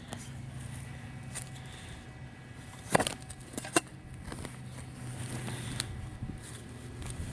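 Dirt being dug and scraped out of a small hole, with faint crackling and two sharp knocks, about three seconds in and again just under a second later, over a low steady hum.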